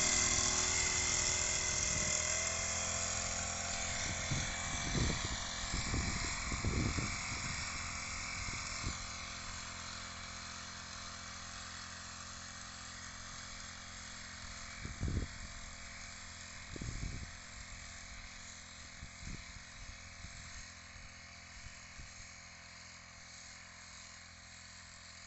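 Four-stroke backpack power sprayer engine running steadily while it blows out a spray mist, fading as it moves away. A few low thumps come through in the middle.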